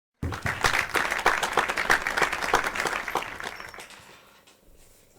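Audience applause: many hands clapping, starting abruptly and fading out over about four seconds.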